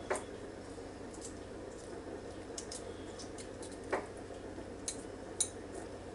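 Fingers peeling the shell off a soft-boiled egg: faint crackling and a few sharper small clicks as bits of shell break away, over a low steady hum.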